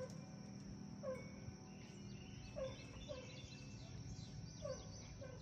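Birds calling: short, low calls repeated every second or two, with fainter high chirps of smaller birds in between.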